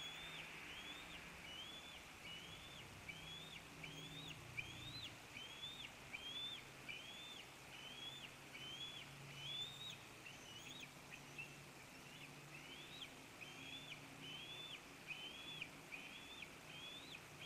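Bald eaglet peeping: a steady series of short, high, up-slurred peeps, about one and a half a second, the chick's repeated begging calls.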